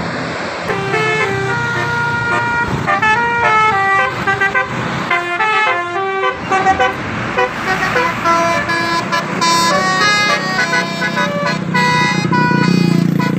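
Bus telolet horn, a set of multi-tone horns, playing a tune of short stepped notes, several tones sounding together, with a brief pause about five seconds in. The bus engine hums steadily underneath.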